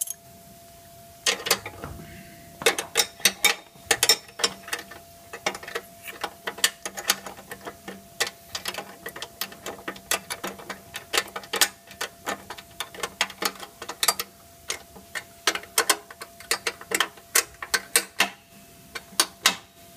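Ratcheting spanner clicking in quick runs as a nut is turned on a lawn mower deck's front-drive bracket, with light metallic knocks of the tool against the fittings.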